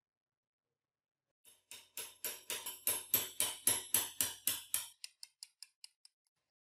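Rapid, even metal-on-metal taps, about five a second, as the steel spindle shaft of an antique hand drill is worked down into its gear hub and cast frame. A handful of lighter taps fade out near the end.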